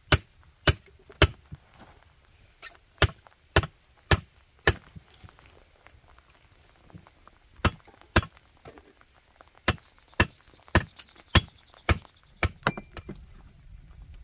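Repeated chopping blows from a hand tool striking hard material, landing about twice a second in runs of two to five strokes with short pauses between.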